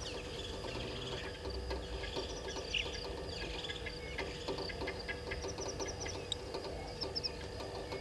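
A morning chorus of wild birds calling together: several quick runs of repeated high chirps and trilling notes overlap, over a steady low hum.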